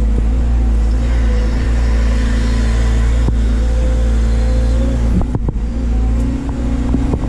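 Doosan DX180 excavator's diesel engine running steadily under working load, with a whine from the hydraulics over it. A couple of faint knocks come about five seconds in.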